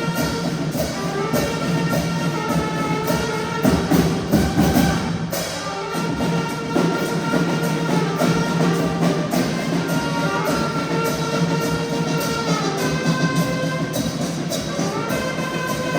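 Upbeat Latin dance music with brass and a steady drum beat.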